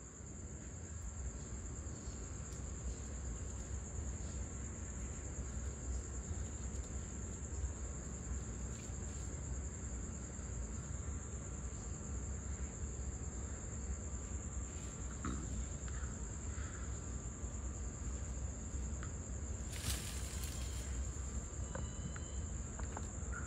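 Night insects trilling in one unbroken, steady high-pitched drone over a low rumble, with a short rustling noise near the end.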